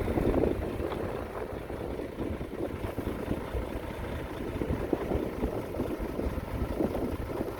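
Diesel engine of heavy earth-moving machinery running steadily, a rough, continuous rumble.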